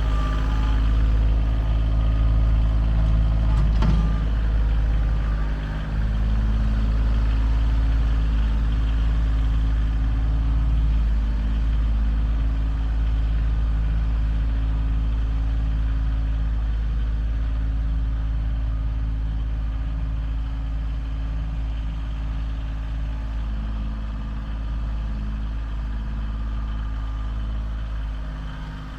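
A large engine running steadily with a low drone, a sharp knock about four seconds in, and the level easing off slightly towards the end.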